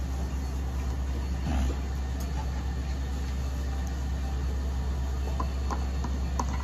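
Steady low machine hum from running equipment, with a few faint light clicks scattered through it and a brief louder rustle about a second and a half in.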